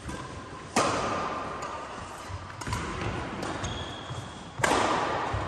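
Badminton racquets striking the shuttlecock during a doubles rally: two loud hits about four seconds apart, with lighter taps and footsteps between, echoing around a large sports hall.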